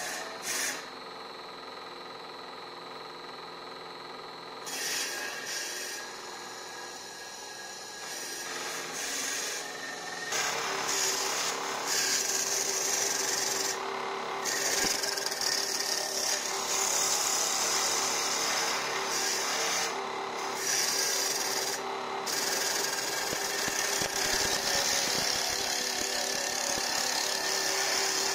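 Single-spindle CNC wood lathe turning a wooden spindle, its cutter shearing the spinning wood with a steady rasping, over a steady high whine from the machine. The cutting grows louder about ten seconds in and stays loud.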